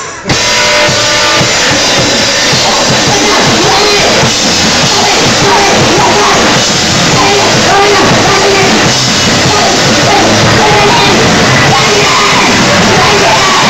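Loud live rock band with electric guitars and drums kicking in suddenly all at once, with a singer yelling over it.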